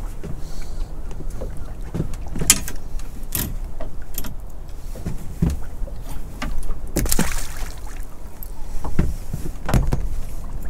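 Water lapping against a small open boat's hull, a steady low rumble, with several sharp knocks spread through, one followed by a short hiss, while a small conger eel is handled and unhooked on the line.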